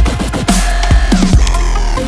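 Electronic background music in a drum-and-bass style, with a steady beat of deep kick drums and a synth sweep in the middle.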